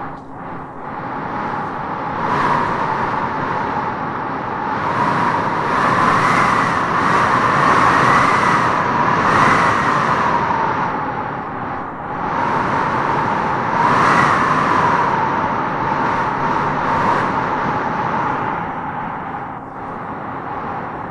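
Strong wind blowing in gusts, swelling and easing, with a wavering whistling tone that rises with each gust.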